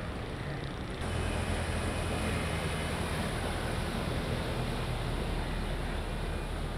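Water sloshing, then from about a second in the steady low running of a bus engine as the bus ploughs through deep floodwater, with water rushing and splashing around it.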